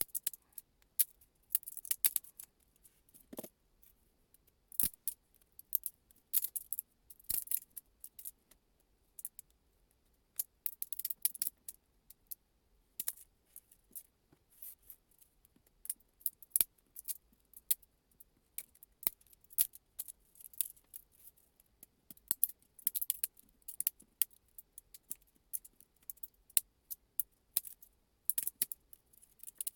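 3D-printed plastic parts being handled and worked by hand: irregular light clicks, snaps and crisp crackles, coming in quick clusters.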